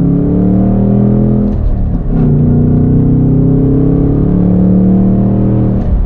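Ford Mustang S650 GT's 5.0-litre V8 heard from the cabin, pulling hard under acceleration with its note climbing. The note breaks briefly about two seconds in and again near the end, as the car upshifts.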